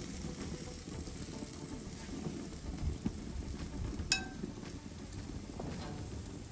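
Low, steady kitchen handling noise while food is worked in cookware, with one sharp metal clink that rings briefly about four seconds in.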